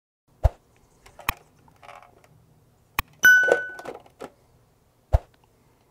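Subscribe-button animation sound effect: several sharp mouse-style clicks and a bell ding a little past halfway that rings briefly, then one more click near the end.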